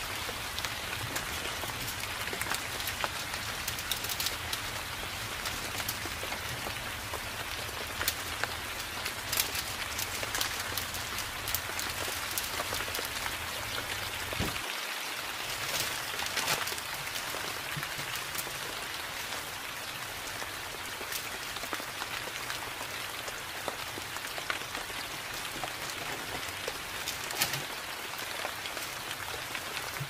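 Steady rain pattering, from a forest rain background track, with light crinkles and taps of paper and stickers being handled. A low hum under the rain cuts off suddenly about halfway through.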